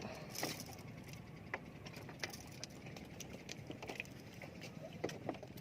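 Scattered light clicks and taps at irregular intervals over a faint steady background noise.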